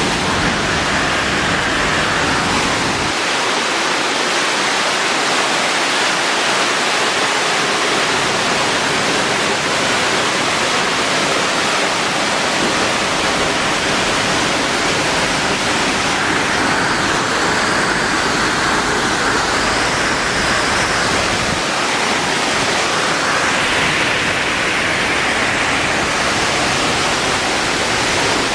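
Large waterfall heard up close, a loud, steady rush of falling water.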